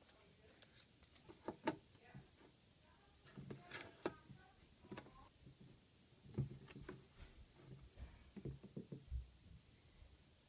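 Faint, irregular clicks and taps of small plastic parts and tools being handled.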